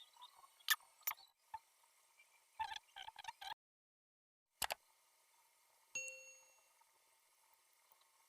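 Small clicks and taps of lens parts and tools being handled, then one bright metallic ding about six seconds in that rings briefly and dies away. The sound cuts out completely for about a second in the middle.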